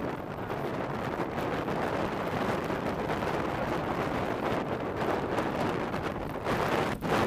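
Wind buffeting the microphone: a steady rushing noise with uneven gusts and a short drop just before the end.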